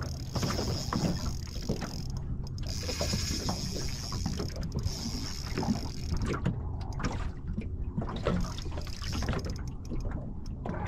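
Water slapping and knocking against a small aluminium boat's hull, with the whirr of a spinning reel being wound in spurts, pausing now and then, as a hooked fish is played in.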